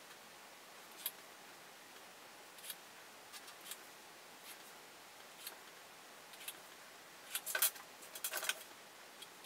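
Faint pencil scratches and light taps of a pencil drawing short lines on paper against a ruler, with a quick run of louder scratchy strokes near the end.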